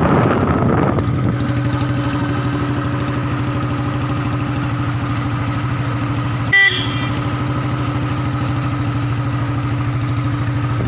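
Royal Enfield Bullet's single-cylinder engine idling at low revs with a steady dug-dug thump. A single short beep sounds about two-thirds of the way through.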